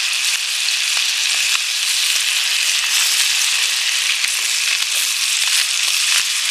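Butter sizzling steadily in a hot cast-iron skillet as chunks of Japanese long onion (naga-negi) are dropped in, with a few light ticks.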